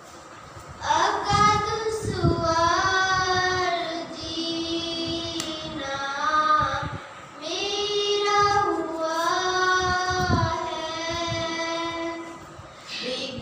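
A young girl singing a naat, an Urdu devotional hymn, into a handheld microphone, in long drawn-out phrases with short pauses for breath between them.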